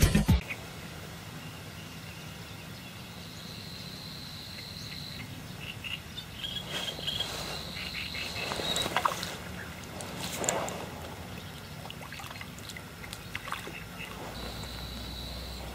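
Pond-bank ambience with faint rustling and water splashes, and a high, steady insect-like buzz in three stretches of a second or two each. Near the end a hooked roach splashes at the surface by the bank. Intro music cuts off just after the start.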